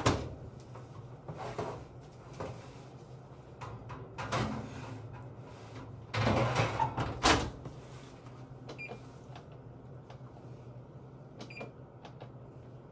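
Kitchen clatter: scattered knocks and bangs, loudest in a cluster about six to seven seconds in, like cupboard or oven doors shutting, over a steady low hum. Two faint short ticks follow near the end.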